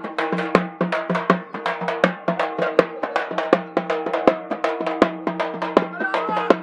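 Drum-led music: rapid drum strokes with a heavier beat about every three quarters of a second, over a steady held drone.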